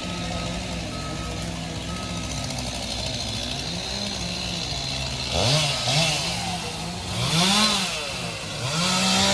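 Chainsaw engine running steadily, then revved up and down three times from about five seconds in, each rev rising and falling in pitch.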